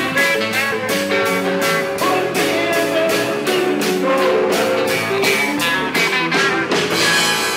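Live blues-rock band playing: electric guitar over a steady drumbeat of about four strikes a second, with held chords underneath.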